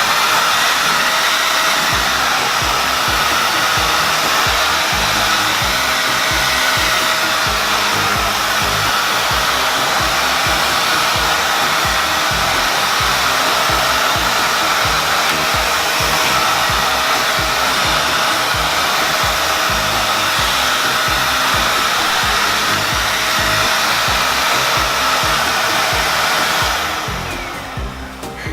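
Corded 600-watt stick wet/dry vacuum cleaner running steadily, a motor whine over rushing air, and switching off near the end.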